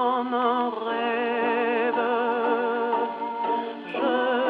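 A 1937 Odeon 78 rpm record playing on a Columbia Vivatonal model 101 acoustic gramophone. The music has held, wavering vibrato melody notes, and the sound has no high treble.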